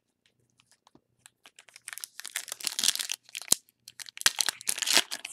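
Foil trading-card pack crinkling and being torn open by hand, starting about two seconds in after a few light handling clicks, with sharp snaps of the foil along the way.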